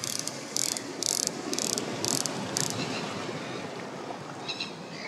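Spinning fishing reel making five short high buzzes, about two a second, over the steady wash of surf on rocks.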